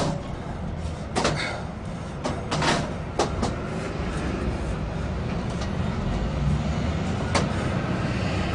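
Steel pry bar levering and knocking against the lock stile of an Xpanda expanding steel security gate, the gate clanking and rattling in a string of irregular sharp knocks, most in the first three and a half seconds and one more near the end. A steady low rumble runs beneath.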